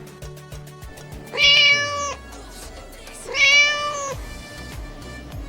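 Domestic cat meowing twice, each meow a steady-pitched call under a second long, over background music.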